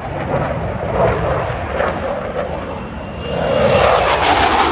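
Jet noise of an F/A-18 Hornet fighter flying a low pass. It swells louder and harsher about three seconds in as the jet comes closer.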